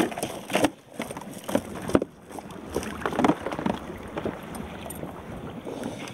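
Irregular knocks and rattles as a landing net holding a freshly caught yellowtail is handled on the plastic deck of a kayak, over a steady rush of wind and water. The knocks are loudest and closest together in the first two seconds.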